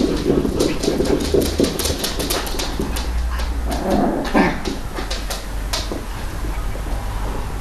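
Small puppies play-fighting: low play growls with many quick clicks, and a short whine about four seconds in.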